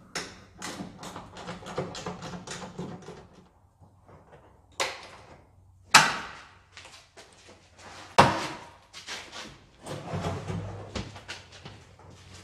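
Workshop clatter as a car bonnet is unbolted from its hinges and lifted off. A run of quick metallic clicks and rattles is followed by three sharp metal knocks, about five, six and eight seconds in, the middle one loudest, with a faint steady hum underneath.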